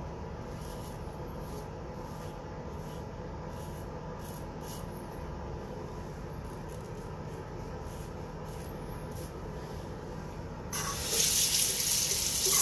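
A water tap runs for about two seconds near the end, much louder than the steady low hum heard before it.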